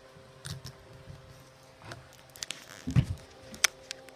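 Handling of a shrink-wrapped phone box: scattered light crinkles and taps, a dull knock about three seconds in, and a sharp click just after.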